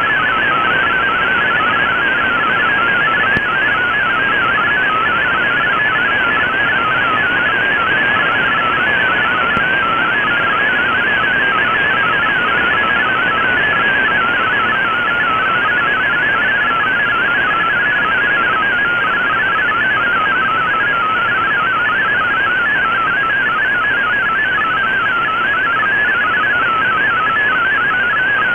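MFSK32 digital text signal received on shortwave through an Icom IC-R8600 receiver: a fast, constantly hopping warble of high tones over steady band-limited radio hiss, the data being decoded into text.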